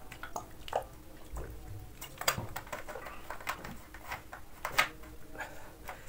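A person drinking water in a pause, with scattered small clicks and knocks from handling the bottle or glass.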